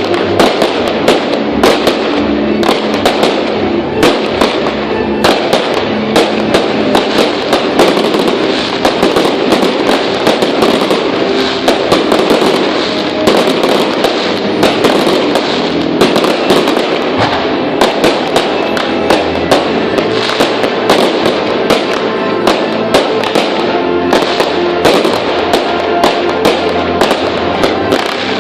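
Fireworks display: a dense, continuous barrage of sharp bangs and crackles, several a second, with music playing underneath.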